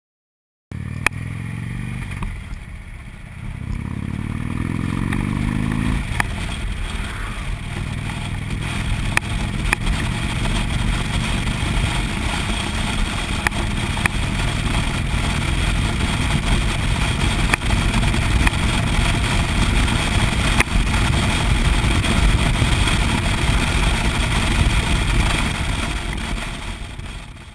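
Cruiser motorcycle's engine heard from on the bike: it accelerates with its pitch rising for a few seconds near the start, then runs steadily at road speed under constant wind rush, with a few brief knocks.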